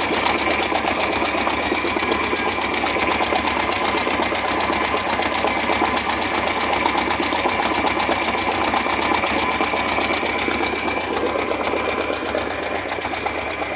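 Boat engine running steadily with an even mechanical chatter that does not change in speed.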